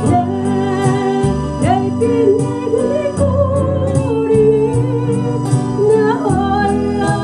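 A woman singing a slow Korean song while strumming an acoustic guitar, over a steady keyboard or organ-like backing.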